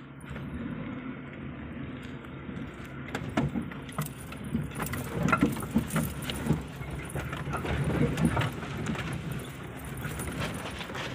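A Maruti Suzuki Eeco van driving slowly over a rocky dirt track, heard from inside the cabin: a low, steady engine note with many jingling rattles and sharp knocks as the body jolts over the rocks.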